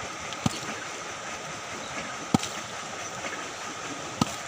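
Steady rush of backwater and wind, with three sharp knocks about two seconds apart as bricks are handled on and over the side of a wooden boat.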